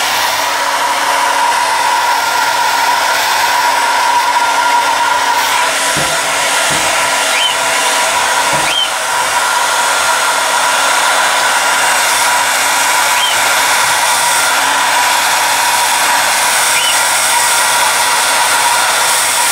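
Hair dryer blowing steadily, a constant rush of air with a steady whine. A few faint, short high chirps come through it.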